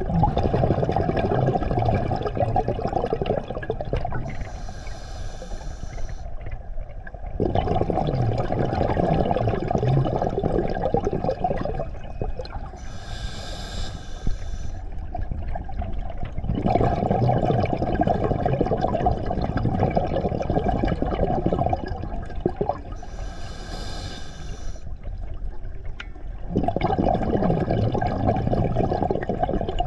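Scuba diver breathing through an open-circuit regulator underwater: a short hiss from the regulator on each inhale, then a longer rumble of exhaled bubbles, in a slow regular cycle about every nine or ten seconds.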